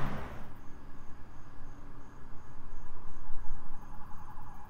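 Crickets chirping in an even rhythm, about three chirps a second, over a low rumble of road traffic; a passing vehicle fades out at the very start.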